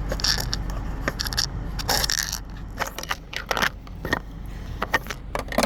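Small metal and plastic parts being handled: a string of light clinks and clicks, with two short scrapes near the start and about two seconds in, as a fastener on the console latch cover is fitted by hand.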